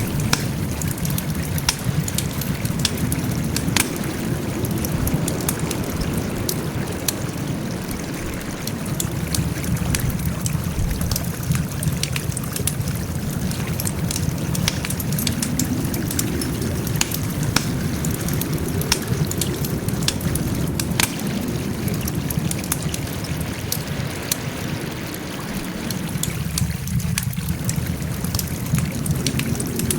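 Wood campfire burning: a steady low rush of flame under frequent sharp crackles and pops from the burning wood.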